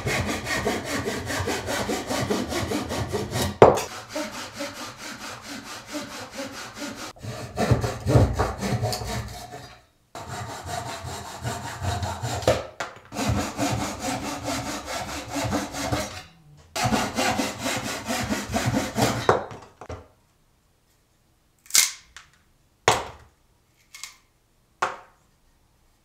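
Narrow hand saw cutting through a wooden board in steady back-and-forth strokes, with two short pauses, stopping about two thirds of the way in. Four sharp knocks follow, about a second apart.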